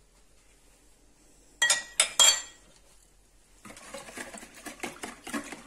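Three sharp clinks about one and a half to two seconds in, then a wire whisk beating thin pancake batter in a plastic bowl in quick, rhythmic strokes from about three and a half seconds in.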